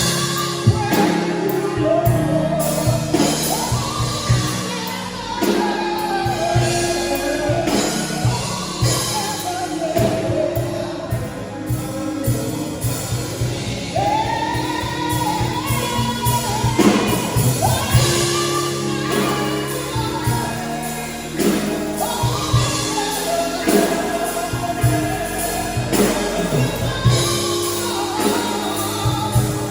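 Gospel music: voices singing a melody over a band with a steady beat.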